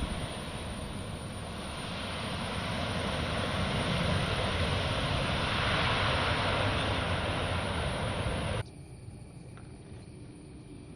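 Airliner passing low on its landing approach: a steady rush of engine noise with a low rumble swells to its loudest about halfway through. Near the end it cuts off abruptly, leaving a much quieter background.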